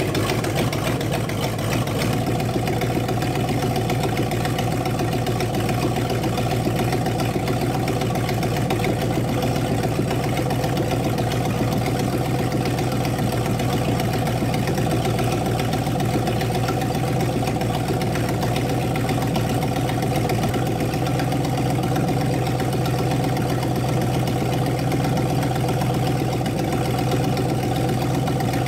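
An old Dodge police sedan's engine idling steadily, with no change in speed. It is left running so the automatic transmission's fluid level can be checked.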